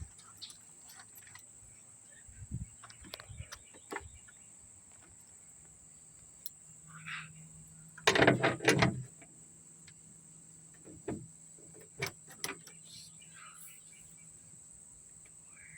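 Socket ratchet clicking in short bursts as the bolts of a car trunk latch are driven in, with scattered knocks of tools and the latch on metal; the loudest burst of rapid clicks comes about eight seconds in.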